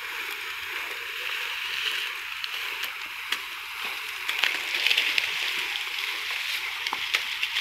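Rustling and crackling of dry sugarcane leaves as a large bundle of cane leaves is carried across cut cane litter, with crisp crackles coming thicker a little past the middle.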